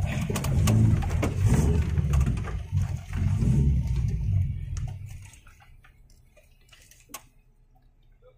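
Off-road 4x4 engine running with an uneven low rumble and scattered knocks, dying away about five seconds in. A single sharp click comes about two seconds later.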